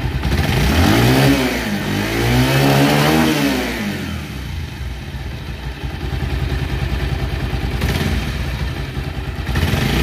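Bajaj Pulsar motorcycle engine revved twice in quick succession, its pitch rising and falling each time, then settling to a steady idle. The engine has just been restarted after a top-end repair of the cam bearings and valves meant to cure a rattling noise.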